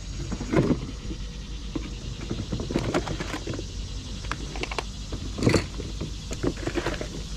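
A vehicle running with a steady low rumble, with a few scattered knocks and clicks, the loudest about five and a half seconds in.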